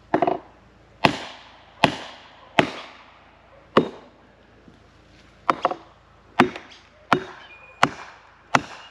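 Hammer blows driving a felling wedge into the cut of a standing dead tree, to force it over: about a dozen sharp strikes, roughly one every three-quarters of a second with a short pause midway, each ringing briefly.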